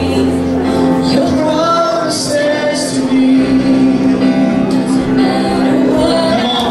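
Worship music with singing: long held chords over a steady bass, with a sung melody above.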